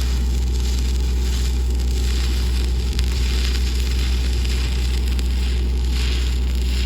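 Stick-welding arc crackling and sizzling steadily over a strong, steady low hum.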